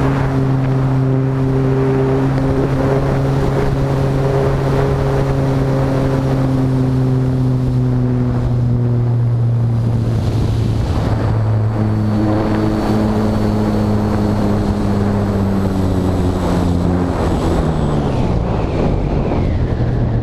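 Electric motor and propeller of an RC Timber model airplane, heard from on board, running with a steady pitched drone over heavy wind rush on the microphone. The pitch shifts about halfway through and glides down near the end.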